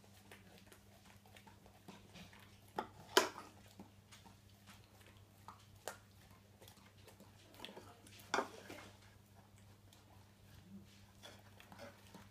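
Alaskan malamute eating cream from a spoon and a hand: scattered wet mouth smacks and licks with a few sharper clacks, the loudest about three seconds in and again just past eight seconds. A low steady electrical hum runs underneath.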